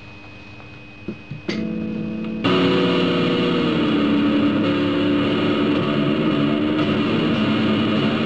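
Electric guitar played through effects with distortion. It is quiet at first, with a couple of clicks, then a loud chord comes in about two and a half seconds in and is held, its notes shifting slightly as it sustains.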